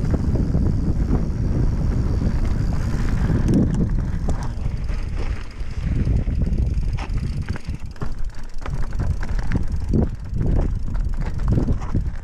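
Mountain bike riding over a rough dirt and grass trail: a low rumble of wind on the microphone and tyres on the ground, with frequent short knocks and rattles from about four seconds in as the bike bumps along.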